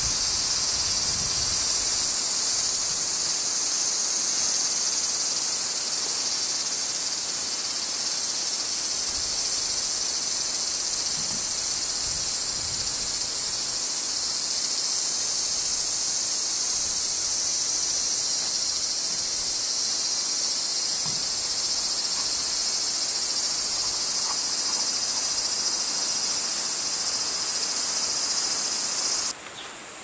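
A dense chorus of cicadas singing as one steady, unbroken high-pitched drone. Near the end it drops suddenly to a thinner, quieter chorus.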